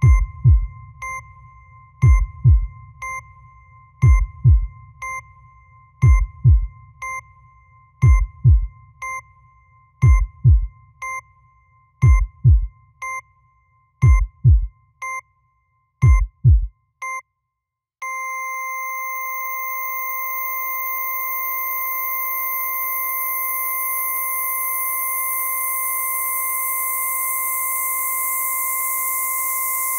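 Synthesized heartbeat and heart-monitor sounds: paired low thumps about every two seconds with short high beeps, fading and stopping after about sixteen seconds. Then a steady flatline tone sets in, with a hiss sweeping down from high up, the sign of the heart stopping in clinical death.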